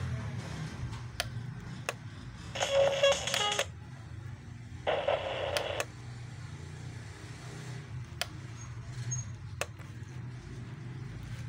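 Plastic buttons on top of a Craig CR41805 clock radio clicking as they are pressed, about half a dozen times. Between the clicks, two short bursts of sound, each about a second long, come from its speaker as the radio mode is switched on and off.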